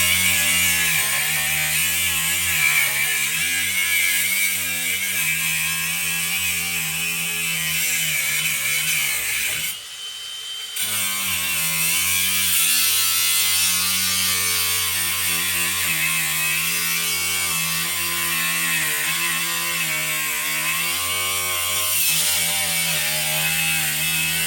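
Handheld power tool running steadily under load with a slightly wavering motor whine. It stops for about a second roughly ten seconds in, then starts again.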